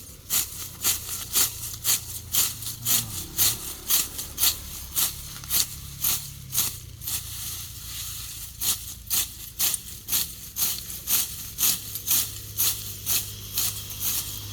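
Sickle slicing through clumps of grass stalks in quick, crisp strokes, about two cuts a second, with a short pause about halfway through.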